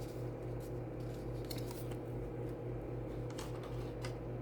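A steady low electrical hum, with a few faint light clicks of small objects being handled.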